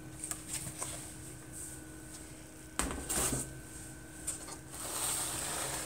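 Quiet indoor room tone with a faint steady hum. A short knock about three seconds in, and a soft rustling hiss near the end.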